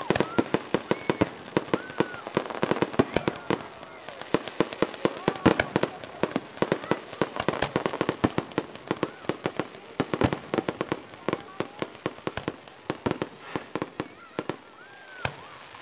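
Fireworks display: a rapid barrage of aerial shells bursting, sharp bangs overlapping several times a second, thinning a little near the end.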